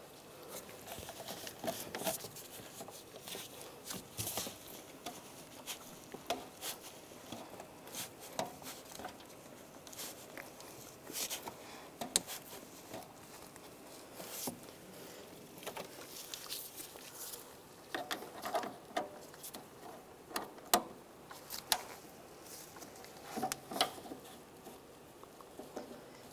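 Hose clamp pliers working the hose clamps on a rubber engine air-intake tube: irregular small clicks, metal taps and brief scrapes, with rubbing of hands on the hose.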